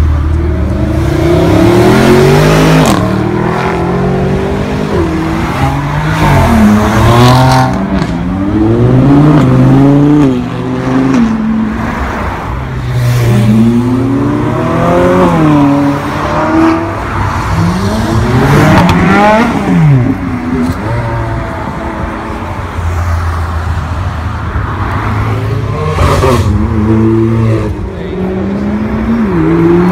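Sports cars and supercars accelerating hard past, one after another. Each engine note climbs and drops back at the gear changes, in several separate runs.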